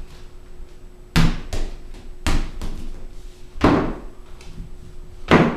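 Hard knocks and thuds on a hardwood floor, four loud ones about a second or more apart, each ringing briefly, with softer knocks between.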